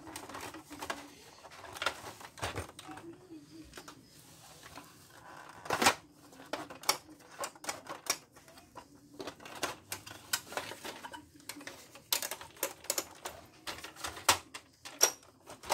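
Irregular plastic clicks, taps and knocks from an Epson L361 inkjet printer's casing and internal parts being handled and taken apart, with the loudest knock about six seconds in.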